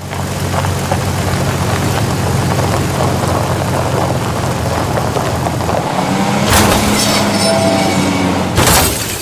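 Dubbed-in vehicle engine sound effect running steadily at a low, even note. About six and a half seconds in a sudden loud burst of noise cuts in, a couple of held tones sound over the engine, and another loud burst comes near the end.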